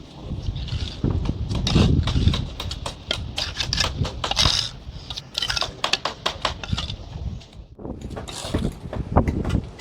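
Steel trowel scraping mortar and tapping on concrete blocks during block laying: many quick irregular scrapes and knocks over a low rumble.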